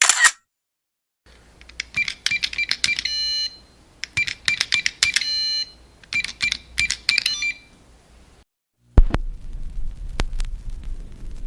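Sound effects played one after another: a clicking effect that ends in a bright ringing tone, heard three times in a row, then a different effect that starts suddenly about nine seconds in, a low rumble with scattered sharp clicks.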